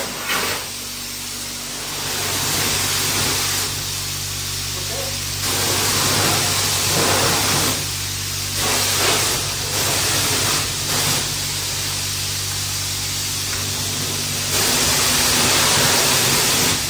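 Self-service car-wash pressure washer jetting water onto bicycles on a van's rear rack, rinsing salt and sand off them. It makes a steady hissing spray that swells and fades as the jet moves over the bikes, over a steady low hum.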